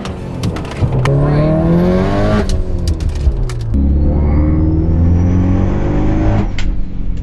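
Built 2015 Subaru WRX STI's turbocharged EJ257 flat-four accelerating hard under boost, heard from inside the cabin. The engine note climbs through a gear, breaks at a shift about two and a half seconds in, then climbs again in the next gear with a faint high whistle rising over it, and falls away near the end.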